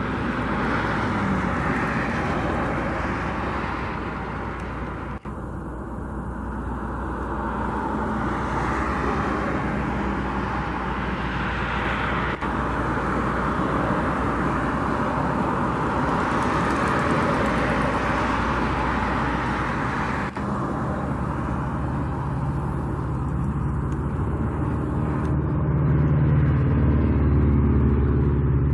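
Steady car and road noise, with a low rumble that grows louder toward the end.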